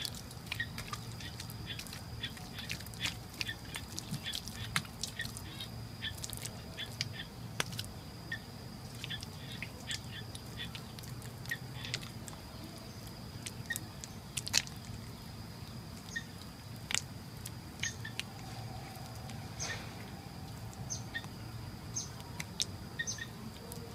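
Wet mud squelching and slapping under a bare hand as it smooths the walls of a mud-lined pit, heard as many short, irregular wet clicks and smacks. A faint, steady high-pitched tone runs underneath.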